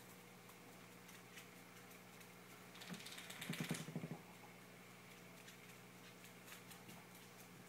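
A faint steady low hum, broken about three seconds in by a brief, rapid rattle of clicks lasting around a second.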